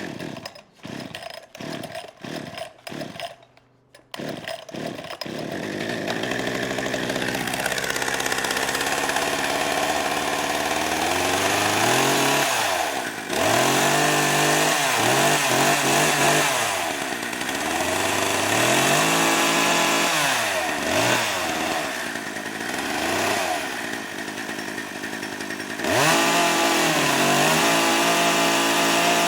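Gasoline chainsaw being started: several short sputtering bursts before the engine catches about four seconds in. It then runs, with the throttle revved up and down again and again. Near the end it jumps suddenly to high revs and holds there.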